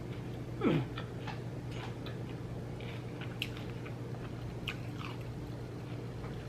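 A person chewing a mouthful of grinder sandwich close to the microphone: scattered small wet mouth clicks and smacks, with a short falling vocal sound near the start, over a steady low hum.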